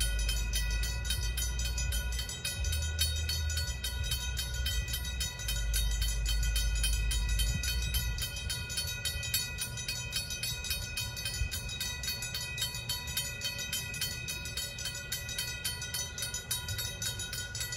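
Railroad grade-crossing bell ringing continuously in rapid, even strokes while the signals are active. A low rumble sits under it for about the first half.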